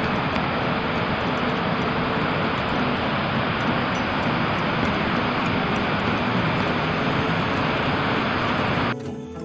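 Steady rushing of a waterfall's falling water, an even full-range noise that cuts off abruptly near the end.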